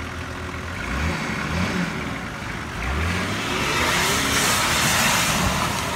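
Nissan Patrol's engine revving in three short rising bursts as the 4x4 crawls through a muddy creek rut, then a louder hiss of the tyres churning mud from about three seconds in.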